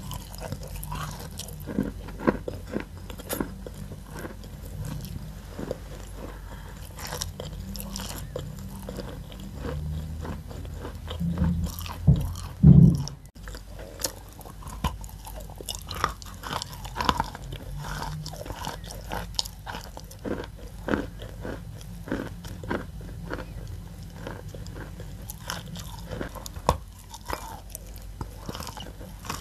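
Close-up crunching of a chunk of chalk being bitten and chewed, with many short, dry cracks as it breaks between the teeth. About halfway through comes one much louder, deeper burst.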